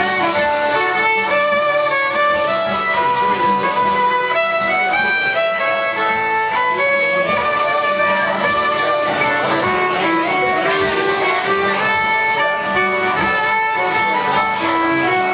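Live fiddle and acoustic guitar playing a tune together, the fiddle carrying an unbroken melody of distinct notes over the guitar's chords.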